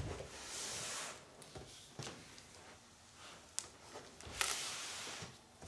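Packaging being handled: styrofoam and a plastic cover rustling and scraping in two swells, with a few sharp clicks and taps between them.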